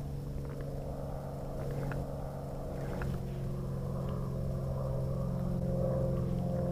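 A steady, distant engine drone with a low hum and higher overtones, growing slowly louder, with a few faint ticks over it.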